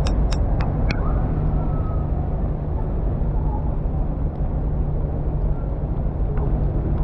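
City street ambience: a steady low rumble of traffic, with a quick run of four sharp clicks in the first second.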